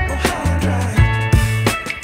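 Background music with a steady drum beat, bass and guitar.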